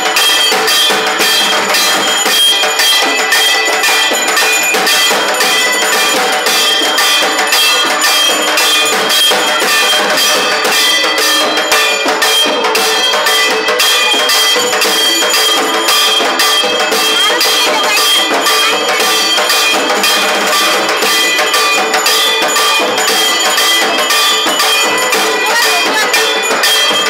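Bells and clanging metal percussion struck in a fast, even rhythm, with a steady metallic ringing over the strokes: the accompaniment to a Durga Puja aarti.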